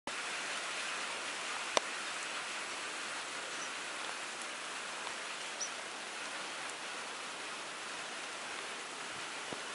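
Steady rain falling, an even hiss, with a single sharp click about two seconds in.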